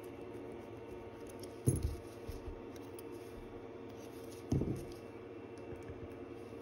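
Bench handling noise from watch reassembly: two dull knocks about three seconds apart, with faint small metallic clicks of tools and parts, over a steady low hum.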